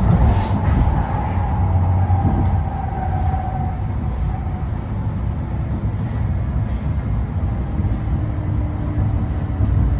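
TriMet MAX light-rail car running along the track, heard from inside the car: a steady low rumble, with a faint whine that drifts down in pitch over the first few seconds.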